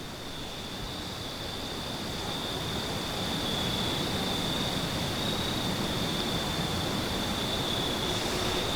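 A steady high insect chorus, one unbroken high trill, over a constant hiss of background noise.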